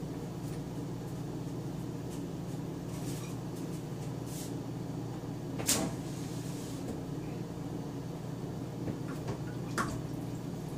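A few sharp clicks and knocks of kitchen handling, such as cupboard doors, over a steady low hum. The loudest knock comes about halfway through and another near the end.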